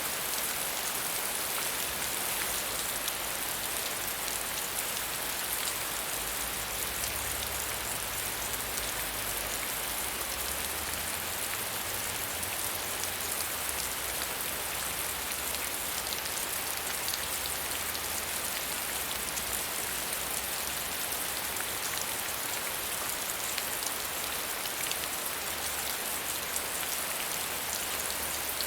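Steady medium rain falling, an even hiss of many fine drops pattering on a surface.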